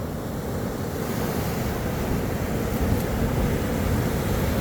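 Rough surf breaking and washing up the beach in a steady rush, with wind buffeting the microphone.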